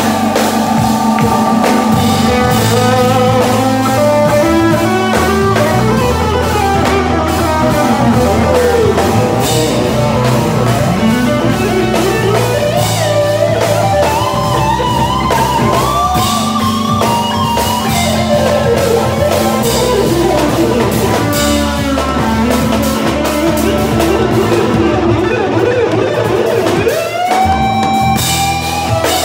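Live band jam: an electric guitar plays a lead with bending, gliding phrases and quick runs over drum kit, electric bass and keyboards.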